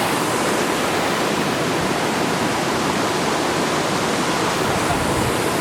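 Waterfall crashing steadily: a dense, unbroken rush of falling water.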